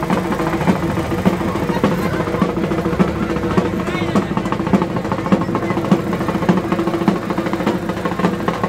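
Loud music with rapid drumbeats over a sustained low droning tone, with crowd voices mixed in.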